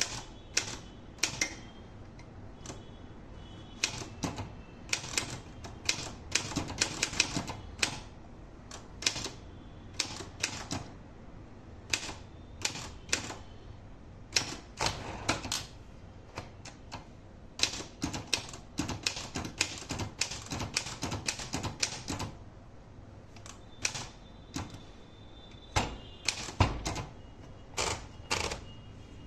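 Olympia Traveller portable manual typewriter being typed on: irregular runs of sharp keystroke clacks with short pauses between words and lines. About 26 seconds in there is a heavier low thud.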